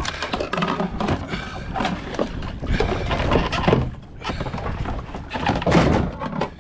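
Irregular knocks, thuds and splashes around a kayak, mixed with a man's short grunts, loudest about 3 s and 6 s in.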